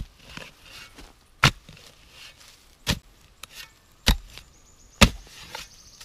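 A shovel blade is driven into forest soil in five sharp chopping strikes, about one to one and a half seconds apart, each followed by a short rustle of earth, as it cuts through roots while digging out a deep metal-detector signal.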